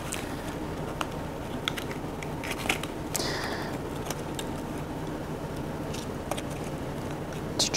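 Scattered small clicks and rustles of an EKG lead-wire belt being wrapped and fastened around a person's waist, with the cables handled, over a steady low hum.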